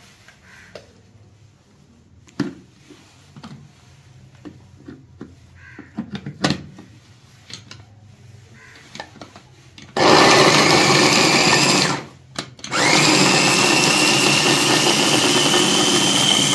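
Plastic clicks and knocks as the lid and motor top of an electric mini chopper are fitted onto its bowl. Then the chopper's motor runs: a pulse of about two seconds, a short stop, then a steady run with a whine that slowly rises in pitch as it chops peeled garlic cloves into paste.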